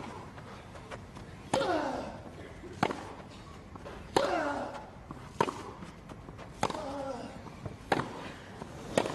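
A tennis rally on a grass court: the ball cracks off racquet strings eight times, about every 1.3 seconds, the players hitting in turn. Every other stroke is followed by a short grunt with a falling pitch.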